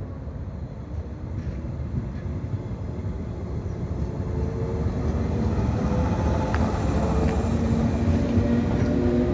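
JR 115-series electric multiple unit pulling away from a station. The low rumble of its wheels and traction motors grows louder as the cars pass, and from about halfway a motor whine rises steadily in pitch as the train gathers speed.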